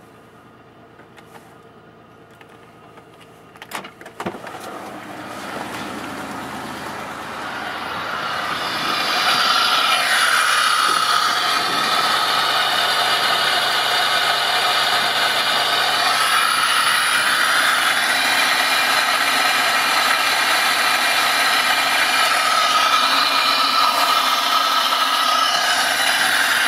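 2001 Pontiac Grand Prix GTP's supercharged 3.8-litre V6 running, an engine the owner says has a failing lifter. It is fairly quiet at first, with a few sharp knocks about four seconds in. The sound then swells over several seconds to a steady, much louder whir that holds.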